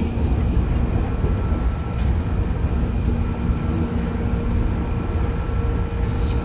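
Running noise inside a JR East 205-series electric train on the Nikko Line, heard in a motor car: a continuous rumble of wheels and running gear with several steady whining tones. The tones hold an even pitch throughout.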